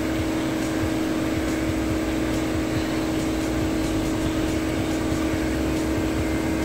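Steady machine drone with a constant hum and a hiss over it, unchanging throughout.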